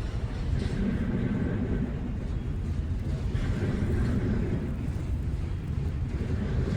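Freight train rolling past, a steady low rumble of its cars' wheels on the rails.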